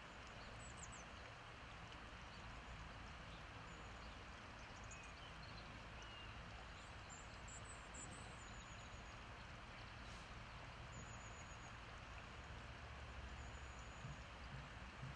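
Near silence: a steady faint background hiss, with a few faint short high chirps now and then.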